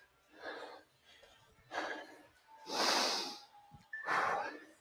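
A person breathing hard after strenuous exercise: four loud, breathy exhalations about a second apart, the third the loudest and hissiest.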